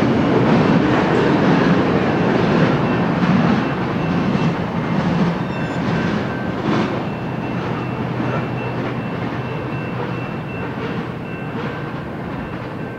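Tail end of a long freight train of tank cars and covered hoppers rolling away, a steady wheel-and-rail rumble with occasional clicks over rail joints, fading as the last car recedes.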